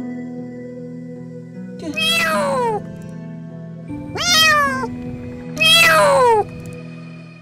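Kitten stuck to a glue mouse trap meowing loudly three times, each cry falling in pitch, as the sticky trap is pulled off it.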